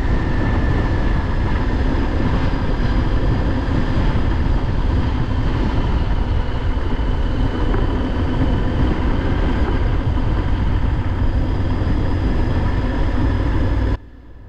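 Onboard sound of a motorcycle riding at a steady speed: engine and wind noise run evenly, then cut off suddenly near the end.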